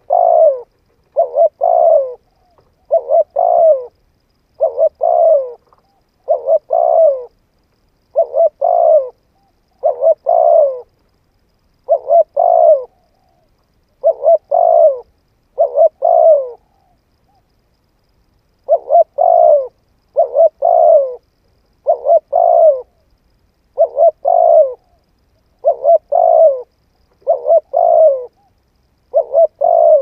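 Spotted dove singing, its cooing phrase repeated about every two seconds with a pause of about two seconds a little past the middle.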